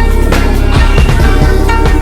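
Instrumental hip-hop beat with no vocals: heavy, sustained bass under a steady, repeating drum pattern and held melodic tones.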